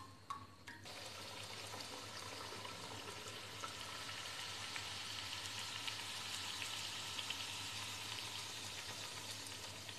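Semolina golgappa dough discs frying in hot oil in an aluminium kadhai: a steady, fine sizzling crackle that starts about a second in as they go into the oil. A couple of light clicks come just before it.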